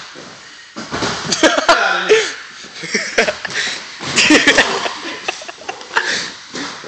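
Short strained vocal sounds and cries from people wrestling on a mat, loudest about a second in and again around four seconds. Several sharp knocks and scuffs come in between.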